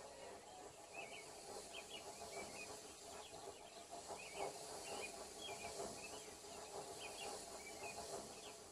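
Faint outdoor ambience of small birds chirping in quick, repeated short calls over a steady hiss.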